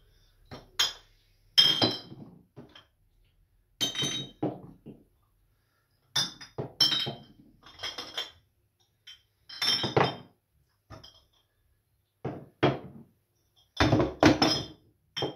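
Empty glass beer bottles clinking against one another as they are lifted out of a plastic crate and stood on a wooden floor. The clinks and knocks come irregularly, many with a short, bright ring.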